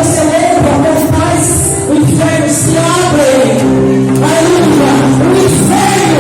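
Live gospel praise music: a singing voice over loud band accompaniment in a large hall.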